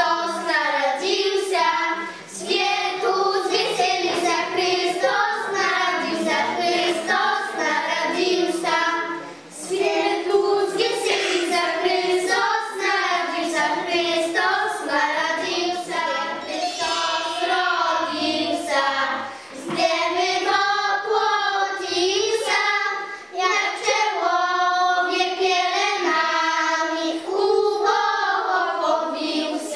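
A group of young children singing a Christmas carol together, phrase after phrase, with short breaths between the lines.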